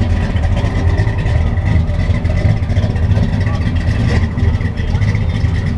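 1968 Chevrolet Impala's 327 V8 running at low speed as the car pulls slowly away, a steady, deep exhaust rumble with no hard revving.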